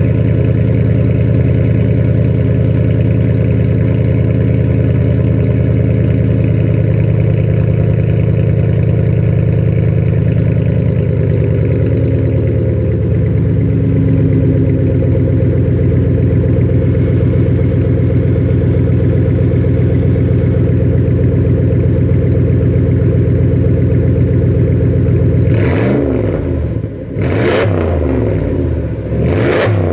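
A 2004 Pontiac Bonneville GXP's 4.6-litre Northstar V8, its mufflers cut out and replaced with straight pipe, idling loudly and steadily through the open exhaust just after a cold start. The idle eases a little lower about halfway through. Near the end it is revved three times in quick succession.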